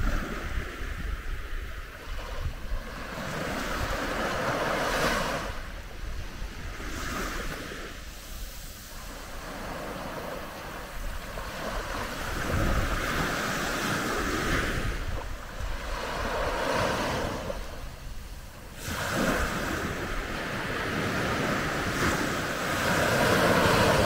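Calm Mediterranean sea waves washing onto a sandy beach: a hiss of surf that swells and fades every few seconds, over a steady low rumble.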